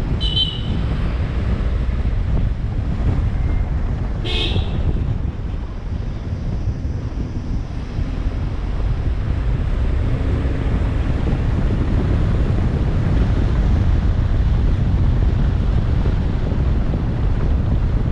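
Wind buffeting the microphone over the low rumble of a moving vehicle, with a short horn honk about four seconds in.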